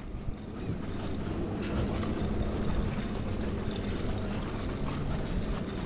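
Boat motor running steadily as a low hum, growing gradually louder.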